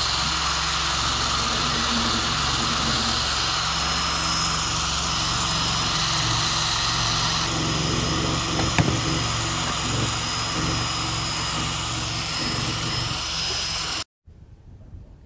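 Handheld power tool running steadily with a small abrasive attachment, stripping old sealant off the wooden frames. There is one sharp knock about nine seconds in, and the sound cuts off suddenly near the end.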